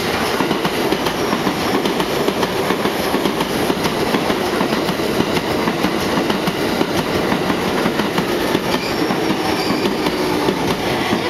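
A train passing close by, its wheels clattering steadily over the rail joints.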